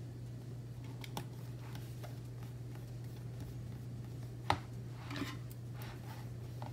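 Hands handling stickers on planner pages: light taps and paper rustles, with one sharper click about four and a half seconds in, over a steady low hum.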